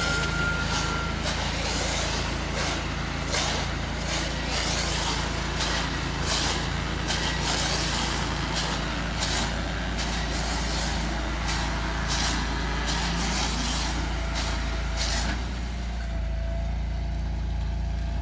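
An engine running steadily, with many short hissing bursts over it for about the first fifteen seconds.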